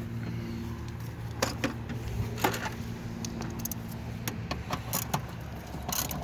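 Metal tools and engine parts clinking and tapping now and then over a steady low hum.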